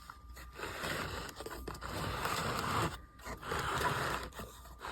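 Scraping and rustling of something being handled, in two stretches of about two seconds and one second with a short break between.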